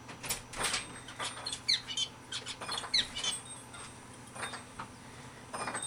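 Adult male zebra finch giving short, high beeping calls in the background, a string of them at irregular intervals that thins out after about three seconds.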